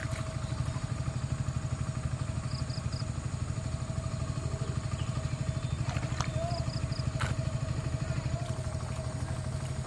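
A small engine running steadily with a rapid, even putter and a constant faint whine.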